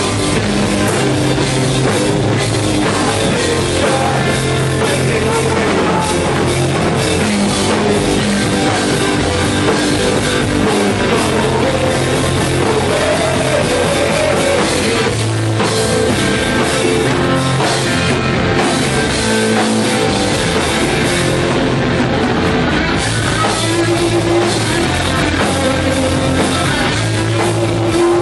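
Punk rock band playing live: loud guitars, bass and drums, steady and without a break.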